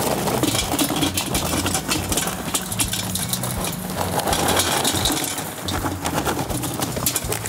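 Charcoal heat beads poured from a paper bag, clattering as they tumble into a bullet smoker's steel charcoal ring. A steady low hum runs underneath.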